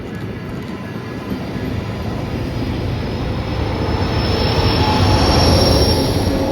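Train running past on the line, its rumble and wheel noise building steadily louder toward the end, with a thin high wheel squeal rising in from about halfway through.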